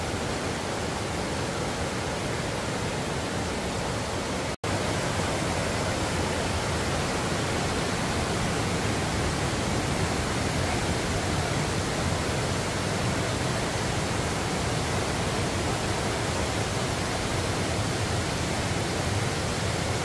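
Waterfall rushing: a steady, dense noise of falling water, broken by a momentary gap about four and a half seconds in.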